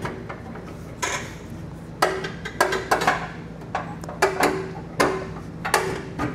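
A steel U-bolt clanking against the truck's steel frame rail and hitch side plate as it is forced into position: about ten irregular metallic knocks, several with a short ring after them, coming thicker from about two seconds in.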